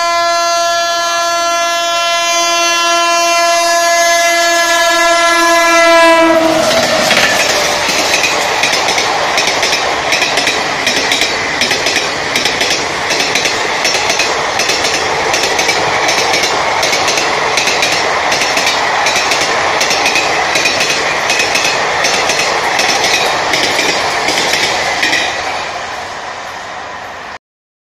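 A WAP-7 electric locomotive sounds one long, multi-tone horn blast as it approaches at speed, and the pitch drops as it passes. Then the rush of the ICF coaches running through at full speed, with a rapid, steady clickety-clack of wheels over the rail joints, fading near the end before it cuts off suddenly.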